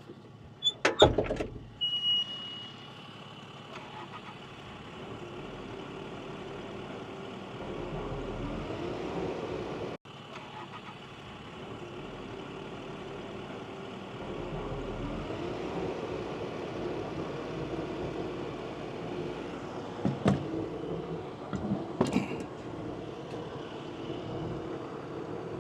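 Diesel engine of a working machine running steadily, its revs rising a couple of times. There are sharp metal clanks about a second in and two more knocks near the end.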